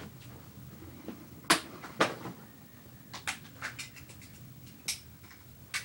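Small plastic toy figures being handled on a hard surface: a handful of light clicks and knocks, two of the louder ones close together about a second and a half in, over a faint steady room hum.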